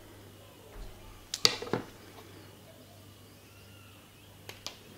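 Small handling sounds of tying hooks onto fluorocarbon fishing line at a table: a quick cluster of sharp clicks about a second and a half in, then two faint ticks near the end, over a low steady hum.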